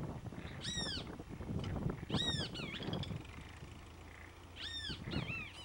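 A bird gives three high arching squealing calls, the second and third each followed by a quick wavering note, over the low rumble of a tractor engine.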